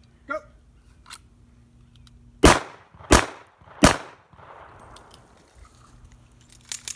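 Three pistol shots, each about two-thirds of a second after the last, each with a short echo tail: a drill of two shots to the body and one to the head.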